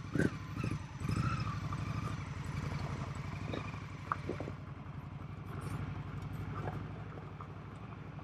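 2021 Indian Scout Bobber's V-twin engine running at low revs with a steady, even pulse as the motorcycle pulls away slowly.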